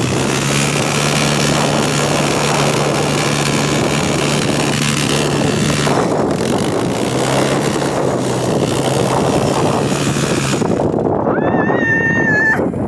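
ATV engine running at a steady pitch under a heavy rush of wind and noise while riding. The engine note drops out briefly about six seconds in, and the noise cuts off near the end, followed by a short, high held tone.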